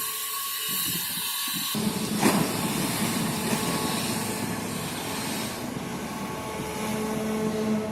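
Heavy machinery running: a steady mechanical hum with hiss, changing suddenly about two seconds in, with a sharp knock just after.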